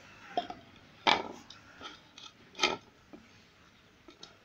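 Puppies eating cooked rice off the ground, with a handful of short, sharp noises, the loudest about a second in and again a little past the middle.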